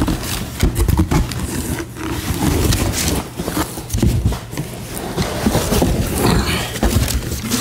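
Cardboard boxes scraping, rubbing and knocking against each other as an inner box is worked out of a tight outer shipping box, with heavy handling noise on the microphone. The noise comes in irregular rough bursts with a few sharp knocks.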